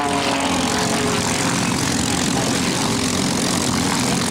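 Pitts Special aerobatic biplane's piston engine and propeller running loud. The engine's pitch drops at the start as the plane passes, then settles into a steady rushing drone.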